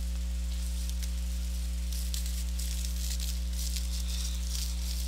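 Steady electrical mains hum with a buzz of higher tones above it. From about two seconds in, faint scratchy crackling as scissors cut into a tape-wrapped plastic parcel.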